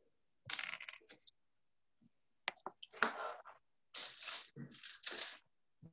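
Several short bursts of rustling and scraping close to a computer microphone, with a few sharp cracks, separated by silences.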